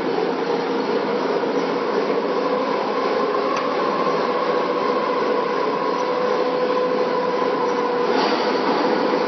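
Refrigeration compressor and cooling fan of a fried ice cream (ice pan) machine running with a steady hum and two held tones. A short rasp comes about eight seconds in.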